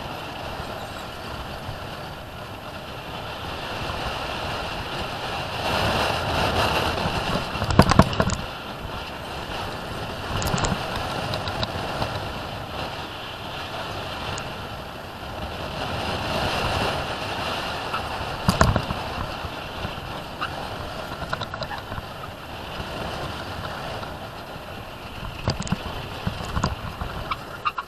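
An unpowered downhill gravity car rolls at speed over asphalt: steady wheel and rushing-air noise that swells and fades on the runs. The car body rattles and knocks over bumps, with the loudest knocks about eight seconds in and again around eighteen seconds.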